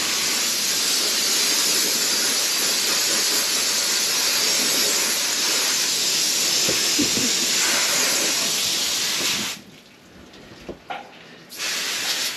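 Garden hose spray nozzle spraying water onto a vinyl boat seat to rinse it, a steady hiss that stops about three-quarters of the way through, followed by a short second burst of spray near the end.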